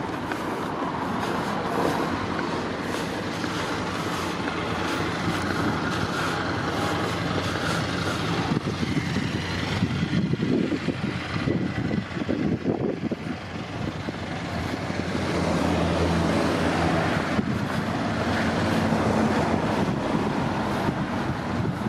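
Road traffic going by alongside, with a motorcycle passing about ten seconds in.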